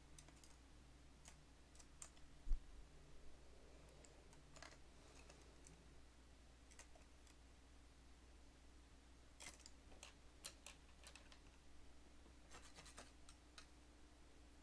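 Faint, scattered clicks and light taps of painting tools being handled while brushes are changed, with a single low thump about two and a half seconds in.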